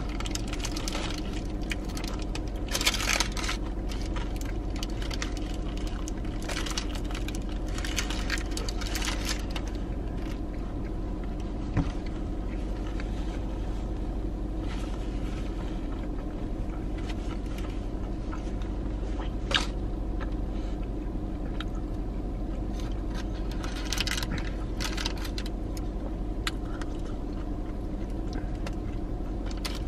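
Close-up eating sounds: chewing a soft sandwich and the crinkle of its paper wrapper and a napkin, in short spells with a couple of single clicks. A steady hum from the parked car runs underneath.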